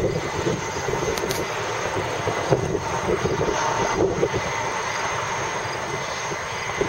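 Air Canada Boeing 767-300ER's jet engines running as the airliner rolls along the runway: a steady, dense roar with no distinct events.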